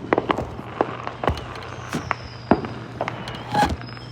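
Fireworks going off across the neighbourhood: about a dozen sharp bangs and pops at irregular intervals, over a steady low hum.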